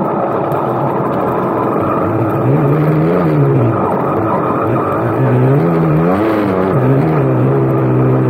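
KTM 300 XC-W single-cylinder two-stroke dirt bike engine running under throttle, its pitch rising and falling at about three seconds in and again near six seconds as the throttle is rolled on and off. A steady rushing noise runs under it.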